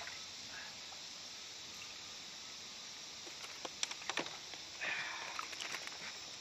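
A hooked gar splashing at the water's surface beside the boat: a few short splashes about four to five and a half seconds in, over a steady faint hiss.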